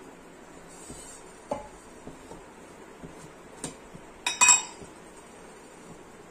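Stainless-steel kitchenware knocking and clinking as a steel oil canister is handled beside the stove. A few light knocks come first, then, about four seconds in, a sharp clink of metal on metal that rings briefly.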